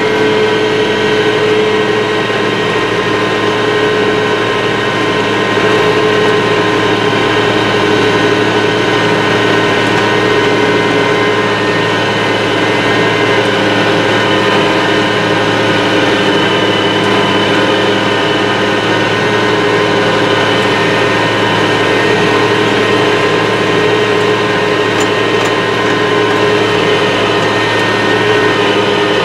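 IH 3788 2+2 tractor's turbocharged diesel engine running steadily under load, pulling a 13-shank chisel plow through cornstalks, heard from inside the cab.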